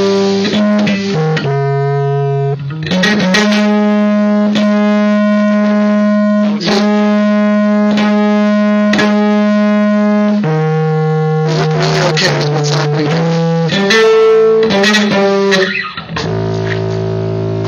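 Live band music: amplified guitar and bass hold long, steady notes that shift pitch a few times, over frequent sharp percussive hits.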